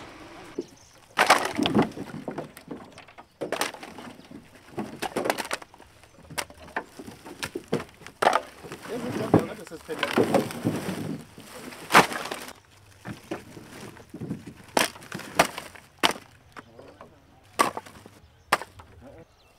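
Split firewood being unloaded from a pickup's bed and dropped onto a pile on the ground: irregular wooden knocks and clatters, some single and some in quick runs.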